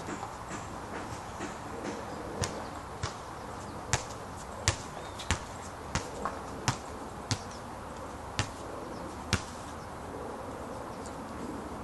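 A basketball being dribbled on an outdoor court: about ten sharp bounces, roughly one every half second to a second, starting about two seconds in and stopping a little after nine seconds. A steady hiss runs underneath.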